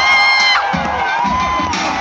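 Crowd cheering and whooping over music, with a held high tone for about the first half second.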